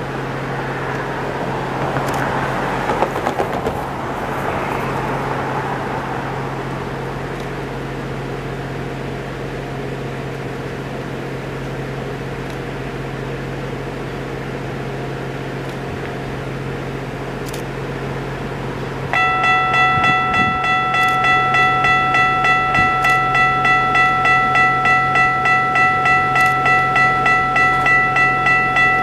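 Railway level-crossing warning bell starting suddenly about two-thirds of the way through and ringing evenly at about two dings a second, which signals that the crossing has activated for an approaching train. It sounds over a steady low hum of street noise.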